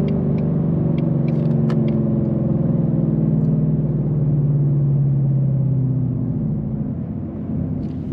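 Ford Mustang engine and exhaust, heard from inside the cabin as the car decelerates off the highway in its 10-speed automatic. It drones steadily, then dies away about six seconds in, with a few faint ticks in the first two seconds.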